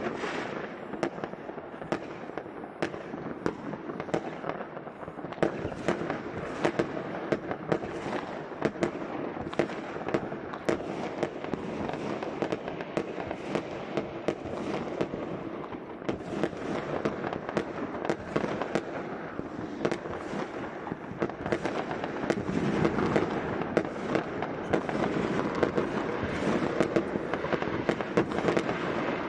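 Many fireworks going off across a town at once: a constant din of crackling with frequent sharp bangs, growing louder and denser about two-thirds of the way through.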